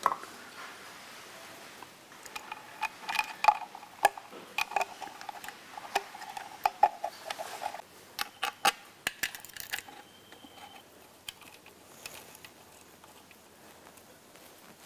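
Light metal clicks and clinks of an automatic transmission's filter and pickup being fitted and bolted onto the valve body, with a faint steady hum from about two to eight seconds in.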